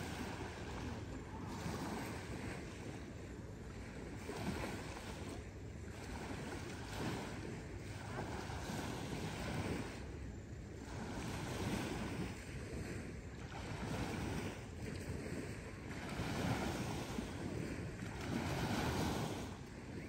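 Small Gulf of Mexico waves washing onto a sandy beach, the surf swelling and easing every second or two.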